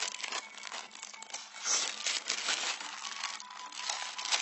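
Irregular crinkling and crackling of something being handled, loudest in bursts about two seconds in and near the end, over a faint steady high tone.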